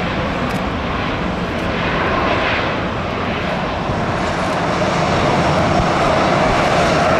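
Jet engines of an Airbus A320 airliner running as it rolls along the runway after landing: a steady rushing noise that grows slightly louder in the second half.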